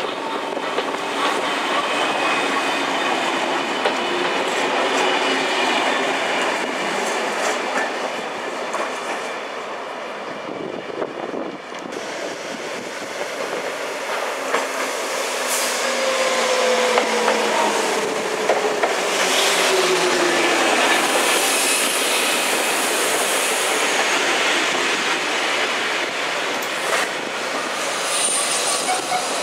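Two SNCF Z2-family electric multiple units at a station platform. The first runs past and fades. The second then comes in along the platform and rolls slowly past, with a falling whine as it slows, wheel squeal and wheels clicking over the rail joints.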